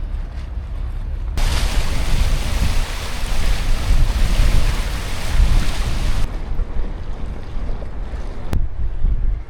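Wind buffeting the microphone with a steady low rumble. A loud rushing hiss cuts in about a second and a half in and stops abruptly about five seconds later.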